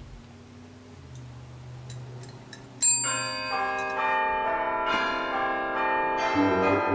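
A chrome desk bell (service bell) struck about three seconds in: a bright ding that rings on, with further overlapping bell tones following.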